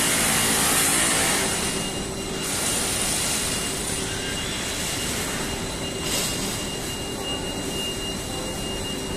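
Industrial machinery of a metal coil laminating line running: a steady mechanical din with a thin high whine held throughout, and a louder hiss over the first second or so.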